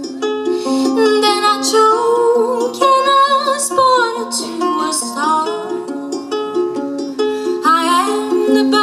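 A woman singing, with her own ukulele accompanying her in a steady run of plucked notes.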